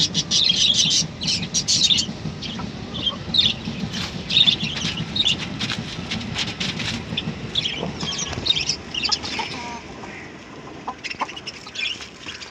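A flock of country chickens calling, with many short, high calls overlapping. It gets quieter after about ten seconds.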